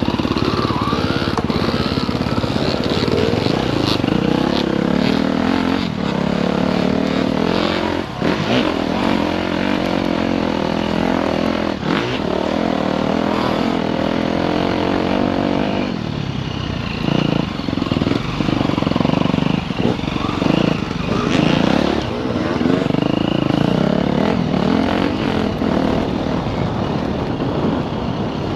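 Dirt bike engine running under throttle as the bike is ridden, revving up and down with the throttle cut briefly several times.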